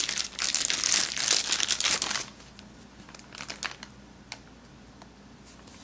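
Clear plastic bag crinkling for about two seconds as it is pulled off a small camera, then a few faint ticks as the bare camera is handled.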